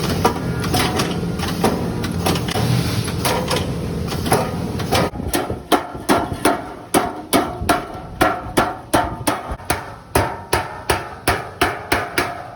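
Hammer striking sheet metal, each blow with a short metallic ring, likely knocking the bent tabs of an HVAC ceiling box into place. The first few seconds have scattered blows over a steady low hum, then an even run of blows at about two to three a second.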